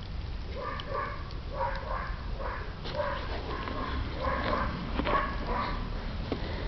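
A dog whining in a run of short, high whimpers, about two a second, while it plays over a toy.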